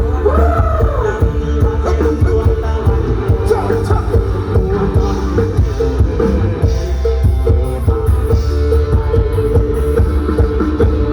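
Thai rock band music with a steady beat, drums, bass and guitar, and a voice singing over it.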